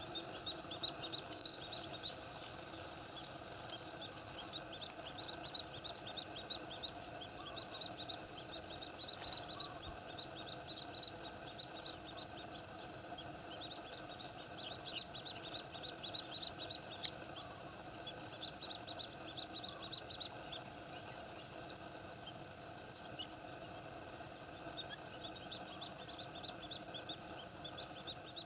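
Small birds chirping in rapid runs of short high notes, several a second, over a steady low drone and a faint high whine. Four sharp clicks stand out as the loudest sounds.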